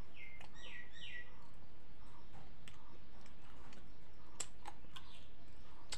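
Close-up mouth sounds of a person chewing chicken: scattered wet clicks and smacks. Three short falling chirps come within the first second and a half.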